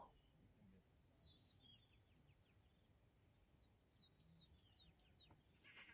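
Near silence with faint birdsong: a few scattered chirps, then a run of four or five quick downward-sliding whistled notes about four seconds in.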